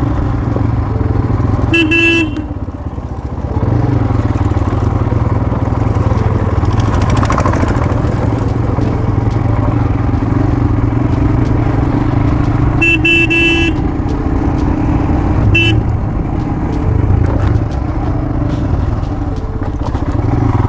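Motorcycle engine running steadily under way, easing off briefly just after the first honk. A horn honks three times: a short blast near the start, a longer one past the middle and a quick toot soon after.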